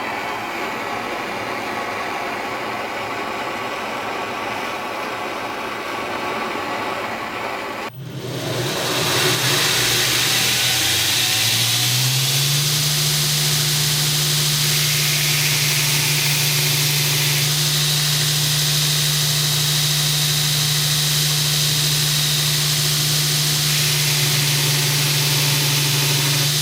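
A steady shop machine running; then, after a break, an electric motor winds up over a few seconds and runs on at a steady hum with a hiss.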